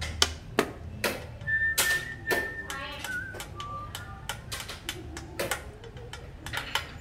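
Wooden xiangqi pieces clacking sharply as they are set down on the wooden board, along with a chess clock button being pressed. About two seconds in, someone whistles a held note and then a few short notes.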